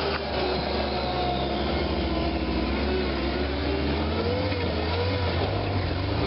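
Rock buggy's engine running hard under load as it climbs a steep rocky slope, a steady low drone with the revs rising and falling.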